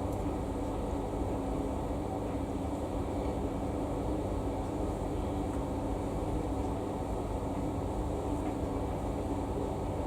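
Samsung washing machine running early in its Daily 40 cycle: a steady mechanical hum with a constant low drone, unchanged throughout.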